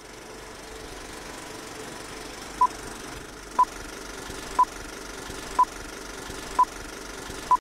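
Film-projector countdown effect: a steady whirring rattle of an old film projector running, with a short high beep once a second, six beeps starting about two and a half seconds in, ticking off the leader countdown.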